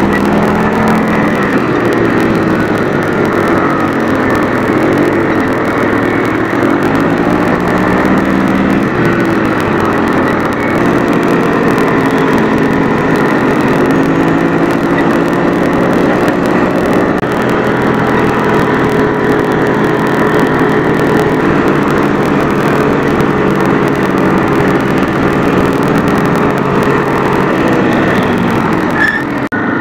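Quad bike engine heard from the rider's seat while riding, its pitch rising and falling with the throttle. There is a brief drop-out near the end.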